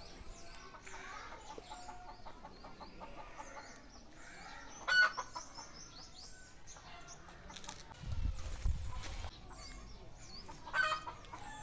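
Birds calling and chirping throughout, with two short louder calls about five and eleven seconds in, and a low rumble about eight seconds in.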